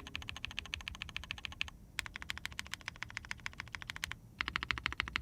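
Fast typing on a mechanical keyboard with Ashkeebs Alexandrite linear switches (UPE stem, HPE top and nylon bottom housing, 58 g springs) on a POM plate with GMK keycaps. The switches sound quiet and deep. The keystrokes come in three rapid runs, with brief pauses just under two seconds in and about four seconds in.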